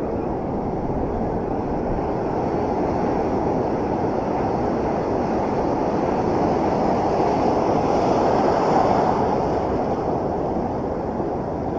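Ocean surf washing through the shallows in a steady rush, mixed with wind on the microphone; the rush swells a little about eight seconds in.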